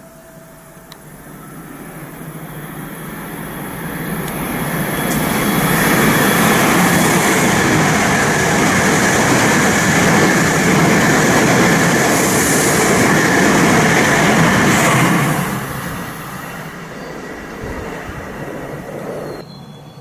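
Shinkansen train passing through the station at speed without stopping: a rushing rail noise builds over several seconds, holds loud for about ten seconds, then falls away quickly.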